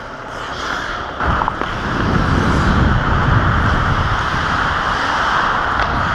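Rushing noise of skating on ice heard through a player-worn action camera: wind across the microphone and skate blades on the ice, growing louder from about a second in.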